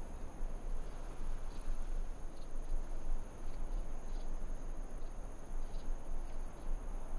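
Steady high-pitched insect chirring, like crickets, over an even background hiss and a low hum, unchanging throughout.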